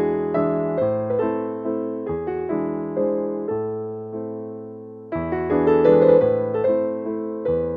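Background music: piano playing notes and chords, growing louder about five seconds in.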